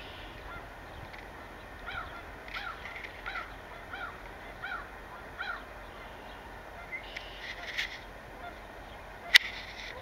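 A gull calling: a series of about six short, arched notes, roughly one every 0.7 s, over a steady outdoor hiss. A single sharp knock near the end is the loudest sound.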